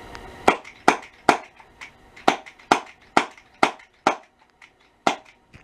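SIG Sauer SP2022 CO2 BB pistol fired rapidly at an apple, about nine sharp shots at roughly two a second, with a few fainter clicks between them.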